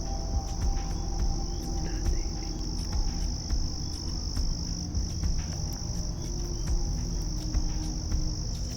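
Crickets chirring in one unbroken high trill, over a low rumble with faint steady low tones.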